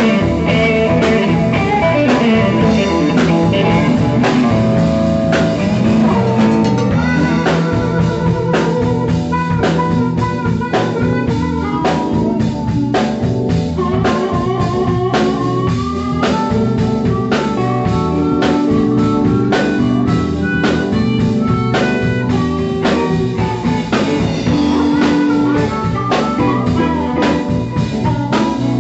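Live blues band with electric guitar and drum kit playing a steady groove; a harmonica, cupped against a microphone, plays held, wavering notes over it in the later part.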